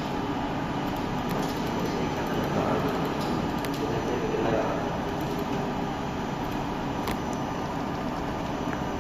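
Steady hum and hiss of running SMT assembly machinery and its cooling fans, with a couple of faint clicks.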